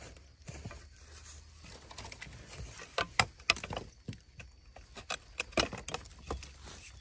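Dry bamboo stems, sheaths and litter rustling, scraping and knocking as a hand works at a bamboo shoot deep in a wild bamboo clump. A scatter of short, sharp clicks and snaps, most of them in the second half.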